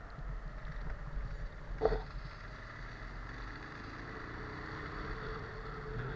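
Riding a Benelli TNT 15 motorcycle through standing rainwater: wind rushing past the helmet microphone and tyres hissing through the water, with the small engine running underneath. One short knock about two seconds in.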